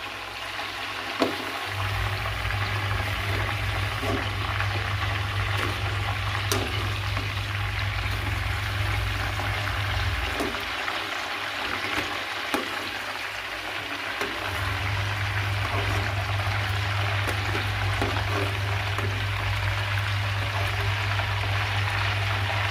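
Chicken drumsticks deep-frying in hot oil in a karahi, a steady bubbling sizzle. A low steady hum runs alongside and drops out for a few seconds midway.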